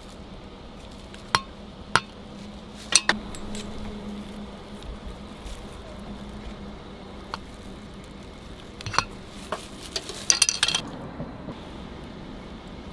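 Metal kitchen utensils clinking and tapping against stainless-steel noodle bowls as fish cake is laid on: scattered sharp clicks, with a quick cluster of clinks near the end. A steady low hum runs underneath.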